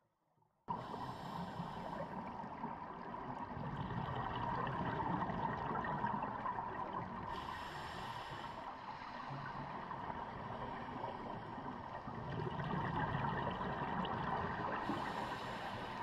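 Muffled underwater sound of a scuba diver breathing through a regulator. A hiss comes with each breath, about every six to seven seconds, and exhaled bubbles gurgle in between. It starts suddenly about a second in.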